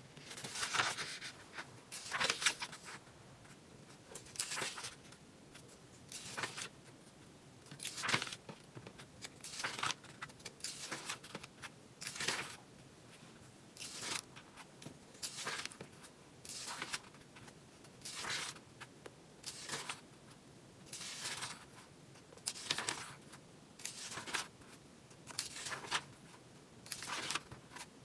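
Pages of a Take A Note slim biweekly planner being flipped one after another, a short papery swish every second or so.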